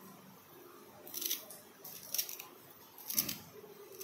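Small kitchen knife cutting through a bunch of fresh coriander leaves and stems held in the hand, with crisp snipping cuts about a second apart.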